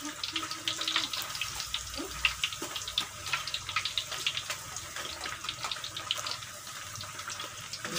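Peyek (rice-flour crackers) deep-frying in hot oil in a wok: a steady sizzle dense with small crackles and pops.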